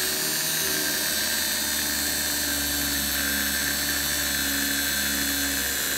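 Brushed sewing-machine motor spinning a small milling spindle at full speed (about 3,000 RPM), a steady high whine, while a 1/8-inch end mill is fed by hand into a 40-thousandths-deep cut.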